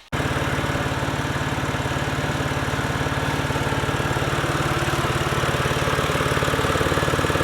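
BMW 128i's 3.0-litre straight-six idling, heard close to its exhaust, with a rapid, even pulsing from a leaking exhaust joint. It begins abruptly.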